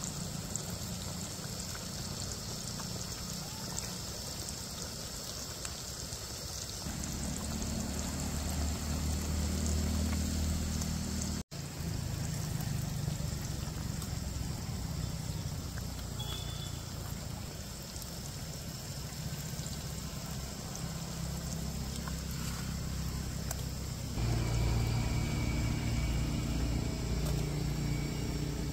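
Fish pakoras sizzling as they deep-fry in hot oil: a steady hiss with a low hum underneath. It changes abruptly a few times and drops out briefly about eleven seconds in.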